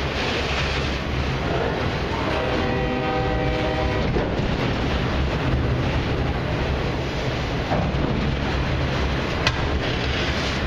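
Autorack freight cars rolling past with a steady rumble of wheels on rail. A train horn sounds once for about two seconds, starting about two seconds in, and a single sharp click comes near the end.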